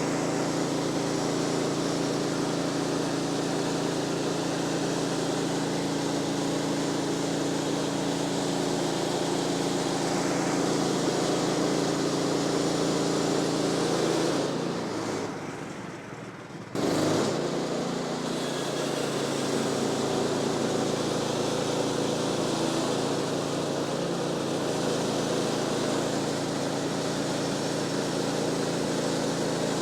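Sawmill's gas engine running steadily as a log is sawn. About halfway through the sound fades for a couple of seconds and then comes back suddenly.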